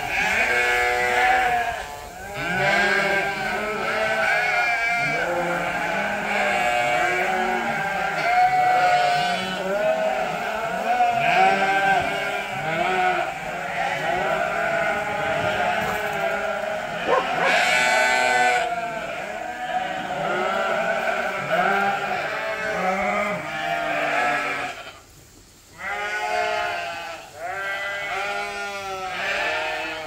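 A penned flock of sheep bleating: many overlapping calls almost without pause, sheep calling in anticipation of feed. A short burst of noise comes about eighteen seconds in, and the calls drop away briefly a little after twenty-five seconds.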